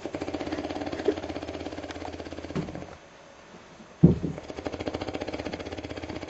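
A person snoring: a long, fast-pulsing rattling snore of about three seconds, a pause of about a second, then a sharp snort that opens a second long rattling snore.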